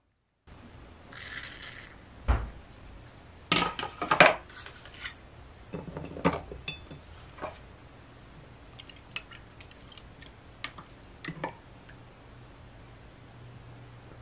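Glassware and kitchen items handled on a countertop: a short rustle, a heavy thud as something is set down, then a run of glassy clinks and knocks, followed by a few scattered light taps.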